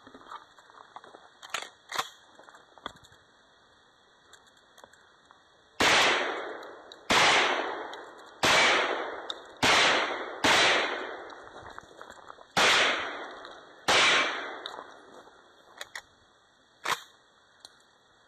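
Seven gunshots in a string, roughly one to one and a half seconds apart with a slightly longer gap before the last two, each with a short echoing tail. A few fainter sharp cracks come before and after the string.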